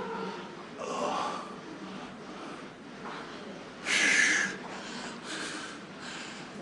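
A man breathing hard during heavy weight training, with a few forceful, hissing exhales and gasps. The loudest comes about four seconds in.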